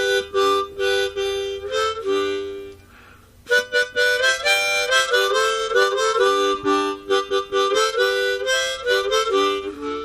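Intro music: a harmonica playing quick, rhythmic chords in short puffs, with a brief pause about three seconds in.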